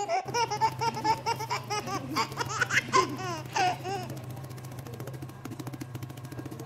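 Cleaver chopping peeled young jackfruit on a plastic-covered surface in quick, even strokes, about five or six a second. For the first four seconds someone laughs over the chopping in a rapid run of 'ha-ha' sounds.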